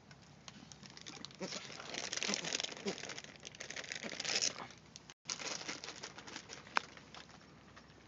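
A flock of white ibises pecking popcorn off bare dirt, their bills making a dense crackling clatter, sounding like ducks eating, with a few short low grunts mixed in. After a brief dropout about five seconds in, the clicking thins to scattered pecks with one sharp click.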